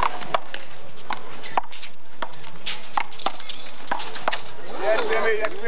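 Small rubber handball being slapped by hand and smacking off the concrete wall and court in a one-wall handball rally: a string of sharp, irregular smacks. A man's voice calls out briefly near the end.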